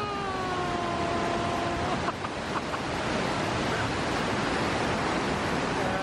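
River water rushing steadily over shallow rocky rapids. In the first two seconds a voice gives one long call that rises and then holds.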